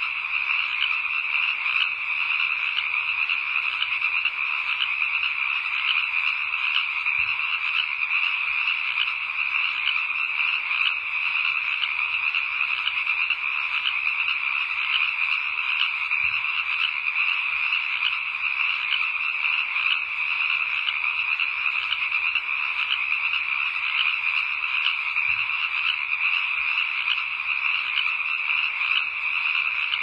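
A dense chorus of frogs calling, many fast pulsing calls overlapping into one steady, unchanging sound.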